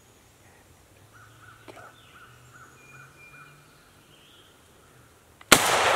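A single shotgun shot at a turkey about five and a half seconds in, sudden and very loud, with a long echo dying away through the woods. Before it, faint bird calls.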